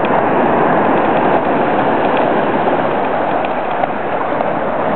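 Steady rushing noise of beach surf and wind, unbroken throughout.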